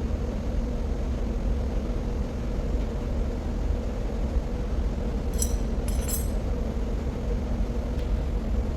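Steady low machinery hum of an underground hydroelectric plant, with a couple of light metallic clinks about five and a half to six seconds in.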